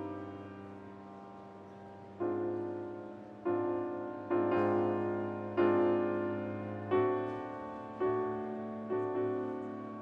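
Piano playing slow chords, each struck and left to ring and fade before the next, about seven in all.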